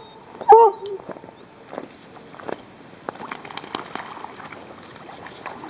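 A dog barks once about half a second in, then splashes and wades through shallow lake water.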